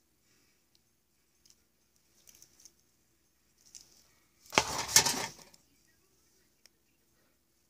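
Aluminium foil crinkling as it is handled: a few soft crinkles, then one loud rustle lasting about a second, a little past the middle.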